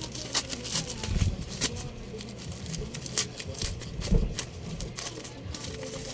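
Irregular clicks, crackles and light knocks of a parcel's plastic packaging being handled and opened by hand, with a couple of duller thumps.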